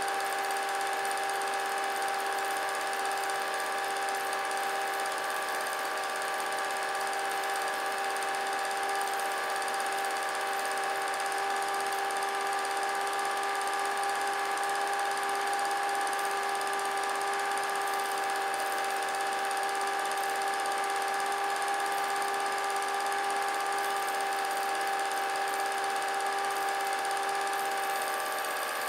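Steady motor-like whine with several held tones over a light hiss, unchanging throughout.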